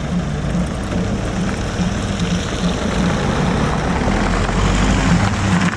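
A car's engine idling close by, then pulling away across the level crossing with tyre noise from the slushy road. The sound cuts off suddenly at the end.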